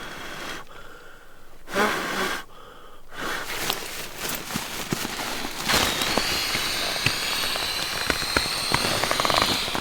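Nylon pump sack being worked to inflate an air sleeping pad: a short burst of sound about two seconds in, then steady crinkling and crackling of the fabric with air rushing through.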